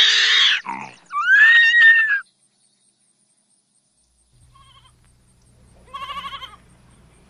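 An orangutan calling in loud, wavering, pitched calls, the second rising and then falling away. After a short break a goat bleats, first a faint short bleat and then a quavering bleat, over a low steady hum.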